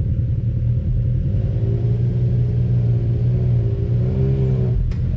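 Can-Am Maverick X3 side-by-side's engine running at low revs as it crawls up a rock ledge: a steady low drone, with small waverings in pitch from light throttle.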